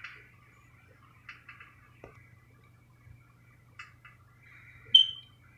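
Faint clicks of a computer mouse scrolling a page, a few in quick succession about a second in and a couple more near four seconds, over a low steady hum. About five seconds in comes a short, high, chirp-like tone that fades quickly; it is the loudest sound.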